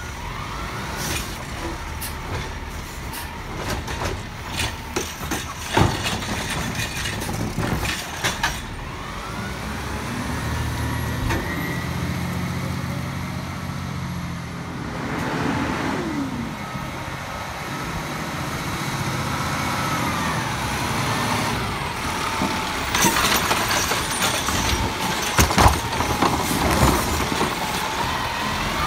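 Peterbilt 520 refuse truck working an Autoreach automated side arm: clanks and knocks as a green waste cart is lifted, shaken out and set down, over the running engine. In the middle, the engine rises and falls in pitch as the truck moves off, and near the end more clanks come as the arm grabs another cart.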